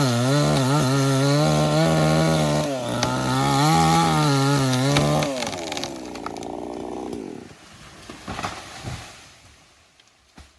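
Two-stroke chainsaw running at high revs in a cut, its pitch dipping now and then as the chain loads up in the wood. About halfway through the throttle is released and the revs wind down, and the sound fades away.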